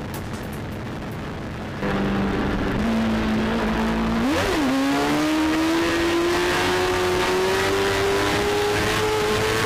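Sportbike engine running at speed: the engine note gets louder about two seconds in, jumps briefly up and down in pitch near the middle, then climbs slowly as the bike accelerates.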